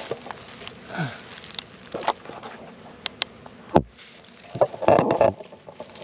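Scattered clicks and rustling, with one sharp knock a little after the middle.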